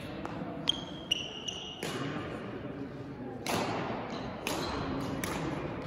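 Badminton play in a sports hall: a couple of sharp hits and short high squeaks of shoes on the court floor in the first two seconds, then louder noise of voices and movement from about three and a half seconds in.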